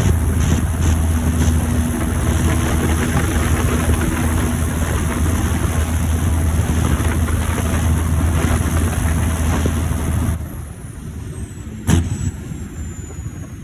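John Deere 7530 Premium tractor's six-cylinder turbo diesel engine running steadily under load. About ten seconds in the engine note drops off sharply and a high turbo whistle winds down, falling slowly in pitch, with a sharp knock near the end.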